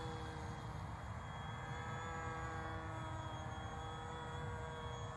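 Distant, steady whine of a small RC plane's E-Flite Park 370 brushless outrunner motor and propeller in flight, sinking slightly in pitch.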